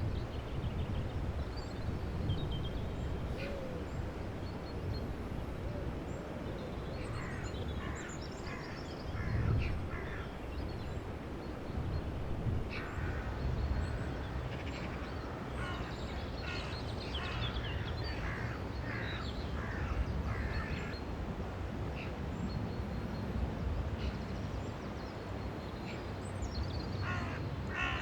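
Hooded crows cawing in clusters of short, harsh calls, over a steady low background rumble.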